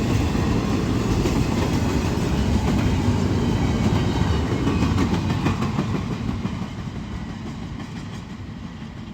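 Short freight train's cars rolling past on the rails, a steady rumble with wheel clickety-clack that fades away over the last few seconds as the end of the train passes.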